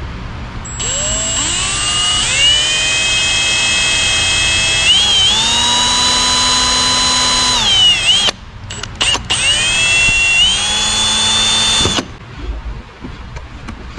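A cordless drill with a 7/64-inch bit drilling holes into a car's trunk lid. The motor whine rises as it spins up about a second in, runs steadily and stops about eight seconds in. It then spins up again for a second, shorter run that stops near the end.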